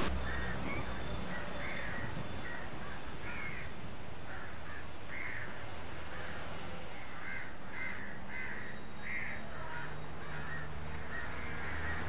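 Crows cawing again and again in short, separate calls, over a faint low steady hum.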